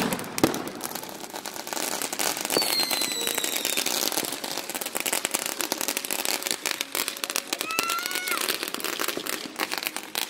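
Consumer fireworks going off: dense crackling from spark-spraying ground fountains, with two sharp bangs about half a second apart at the start and a short falling whistle a couple of seconds in.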